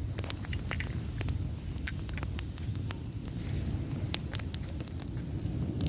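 Small campfire of dry sticks crackling: irregular sharp pops and snaps over a steady low rumble.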